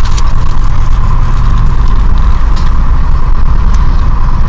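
Steady low rumble of a running vehicle with a constant mid-pitched hum and a few faint clicks.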